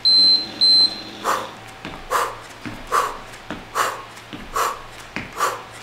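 Two short high electronic beeps at the start, a workout interval timer marking the start of the work period. Then a woman's sharp, rhythmic exhales, about one every 0.8 s, as she does switch kicks, with soft thuds of her feet between them.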